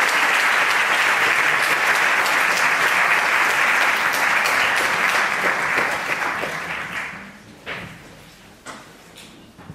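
Audience applauding, dying away about seven seconds in, followed by a few scattered knocks.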